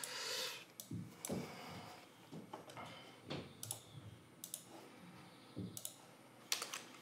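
Faint, irregular clicks and a few soft knocks from hands working at an office desk with a handheld dictation microphone and a computer.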